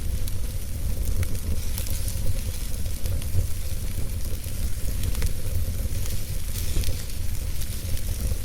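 Wood fire burning in a fireplace: a steady hiss over a deep rumble, with scattered sharp crackles and pops from the burning wood.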